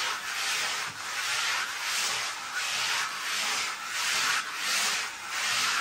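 A large notched spatula with filed-down teeth spreading contact adhesive over a smooth laminate panel. It scrapes back and forth in about eight even strokes.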